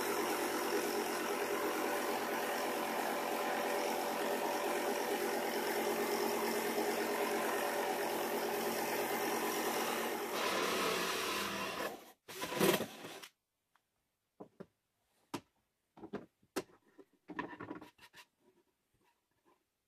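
Jigsaw mounted under a homemade plywood table, running steadily as its blade saws a curve in plywood. About halfway through the machine sound changes, ends in a short louder burst and stops. After that come scattered knocks and taps of wooden pieces being handled.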